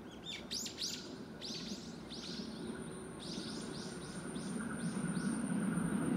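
A songbird calling with short, arching chirps in three bursts, over the low rumble of an approaching electric train that grows steadily louder.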